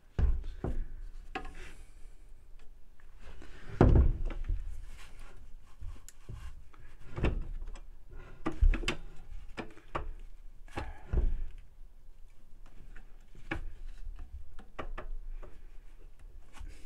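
Irregular knocks, clunks and rubbing as the plastic-framed, copper-wound stator of an LG direct-drive washer motor is handled and worked off at the back of the tub, with a few louder thunks about four and nine seconds in.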